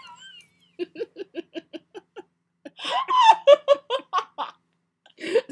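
Girls laughing: a quick run of short breathy ha-ha pulses, several a second, then a louder, higher burst of laughter about three seconds in.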